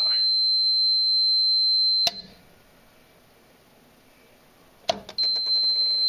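A multimeter's continuity beeper sounds a steady high-pitched tone across the relay's normally closed contacts. About two seconds in it cuts off with a click, then a click near the end brings it back: the condensate pump's float switch opening and closing, switching the relay and breaking the circuit.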